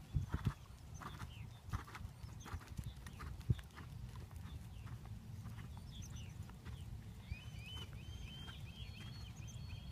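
Hoofbeats of a ridden Thoroughbred horse moving on arena sand, clearest in the first few seconds, over a low steady rumble. A run of short high chirps comes in near the end.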